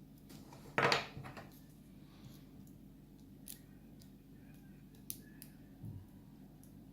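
Light clicks and a brief rattle about a second in, followed by a few faint scattered clicks and a soft knock: small metal lock pins and springs being handled as a pin-tumbler lock cylinder is taken apart.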